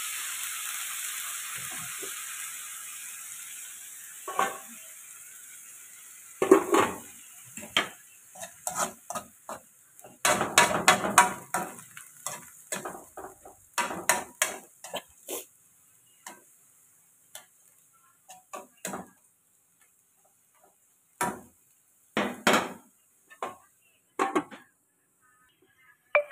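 Chicken frying in oil in a wok, a steady sizzle that fades away over the first few seconds. It gives way to a spatula scraping and knocking against the wok in irregular strokes as the chicken is stirred.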